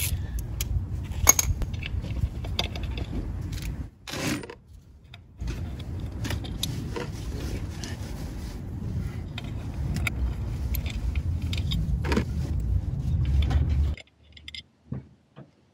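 Small metal clinks and scrapes of tools and fasteners as the screws of the Harley primary case's derby cover are worked loose, over a steady low rumble. The rumble and most of the clinking stop abruptly near the end, leaving a few faint clicks.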